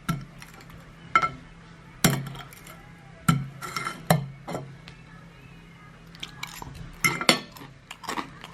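Metal cutlery clinking against a plate or bowl: sharp, irregular clinks with a short ring, about one a second.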